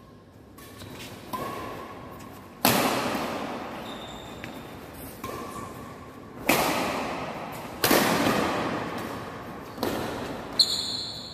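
Badminton rackets striking a shuttlecock in a fast doubles rally: several sharp smacks a second or few apart, each with a long echo from the hall, and a few short squeaks in between.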